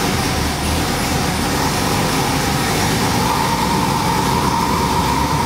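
Ford 7.3L Godzilla pushrod V8 crate engine running on an engine dyno moments after start-up, at a raised idle that has not yet settled down. A faint whine joins the steady engine note from about halfway through.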